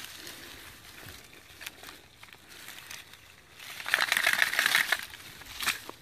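Crunching and rustling as stiff burnt power cable is handled on dry leaves and grass: scattered clicks, then a loud burst of crunching from about three and a half to five seconds in, and one more short crackle near the end.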